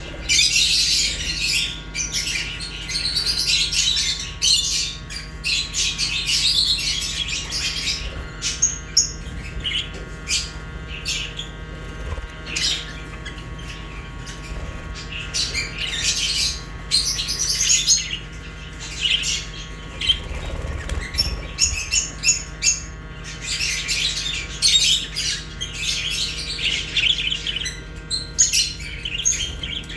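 Pet budgerigars and lovebirds chirping and squawking together in busy, overlapping flurries of high chatter with short lulls.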